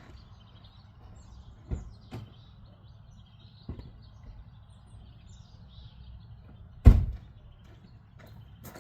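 A few short knocks, with one much louder thud about seven seconds in. Faint bird chirps and a low steady rumble sit underneath.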